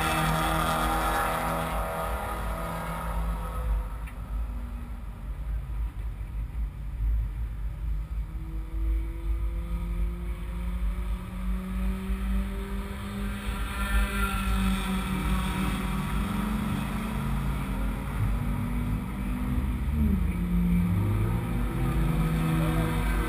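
A car's engine running at low revs while the car rolls slowly, its pitch drifting up and down with the throttle over a steady low rumble.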